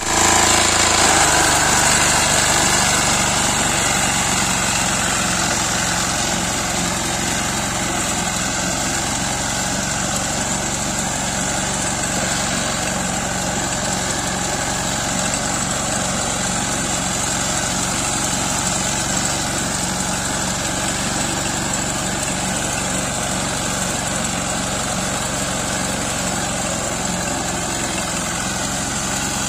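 Walk-behind rice reaper's small air-cooled single-cylinder engine running steadily while the machine cuts standing rice, with a constant high hiss over the engine note. It is a little louder in the first few seconds, then holds level.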